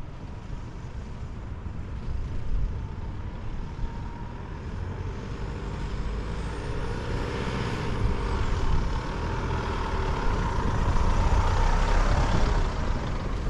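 A four-wheel drive driving on beach sand: steady engine and road noise with a faint constant whine, growing slowly louder.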